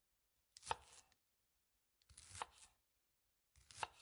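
Kitchen knife cutting food on a cutting board: three slow, evenly spaced strokes about a second and a half apart, each a short slicing sound.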